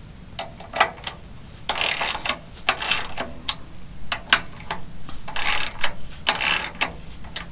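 Socket ratchet wrench clicking as the sawmill bed-rail bolts are worked: single sharp clicks between three short quick rattles of strokes.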